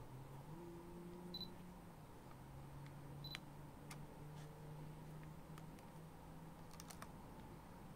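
Canon EOS Kiss M mirrorless camera giving two short high beeps, like its focus-confirmation signal, about a second and a half and about three seconds in, each with a light click, over a faint low motor hum. A few soft button clicks come near the end.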